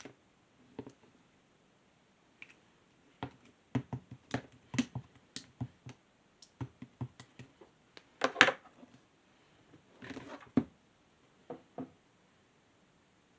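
Clear slime being pressed and squeezed by hand, giving irregular sharp clicks and pops of trapped air, with two longer crackling squishes about eight and ten seconds in.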